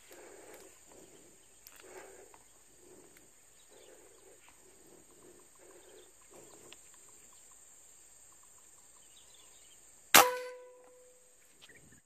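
A single sharp shot from a PCP air rifle about ten seconds in, followed by a brief ringing tone that dies away within half a second. A steady high-pitched insect buzz runs underneath.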